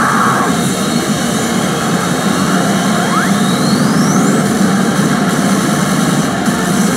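Pachinko parlour din: a steady, loud roar of balls and machines, with a rising electronic sweep about three seconds in.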